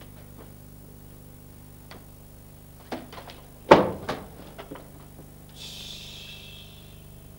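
A few light knocks and then one sharp, louder thump on a theatre stage a little past halfway, followed by smaller clicks, as an actor walks on; a brief soft hiss comes near the end, over a steady low hum.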